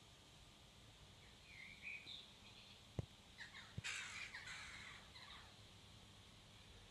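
Near silence: room tone, with two faint sharp clicks about three seconds in and a brief harsh sound just after.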